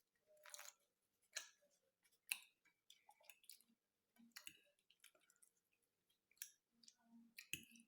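A person chewing a mouthful of soft food close to the microphone: faint wet mouth clicks and lip smacks, scattered irregularly, with a couple of sharper ones.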